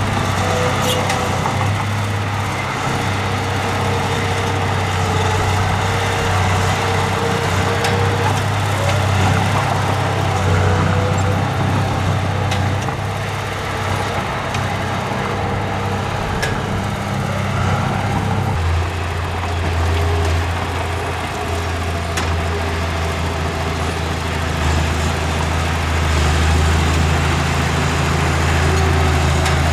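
Heavy diesel engine of earthmoving machinery running steadily. Its low hum drops slightly in pitch about two-thirds of the way through, as the engine load changes.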